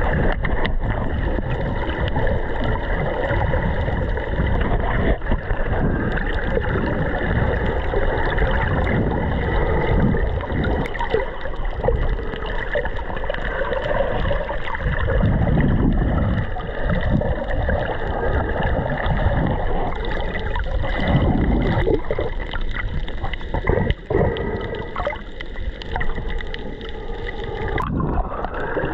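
Muffled underwater gurgling and bubbling picked up by a camera below the surface, with the rush of scuba divers' exhaled bubbles swelling and fading at irregular moments.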